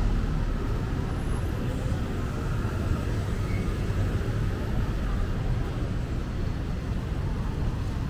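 Steady city street ambience: traffic on a wet road, heard as an even low rumble with no distinct events.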